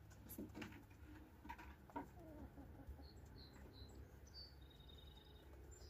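Faint sounds of pigeons in a loft: a few soft knocks and low bending calls in the first two seconds, then a string of short high chirps from about three seconds in, over a low steady hum.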